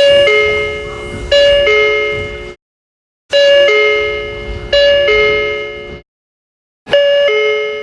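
Eidan subway train door chime: a two-note falling ding-dong played twice. It is heard three times in a row, each cut off by a brief silence, and the third starts near the end.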